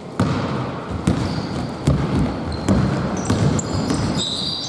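Basketball being dribbled on a hardwood gym floor, a deep bounce about every second, with a short high squeak near the end.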